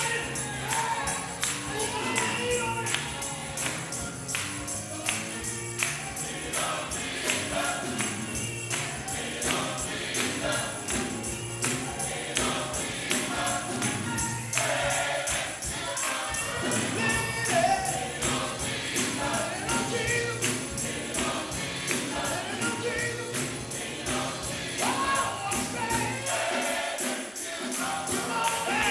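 Gospel choir singing, with a tambourine keeping a steady beat.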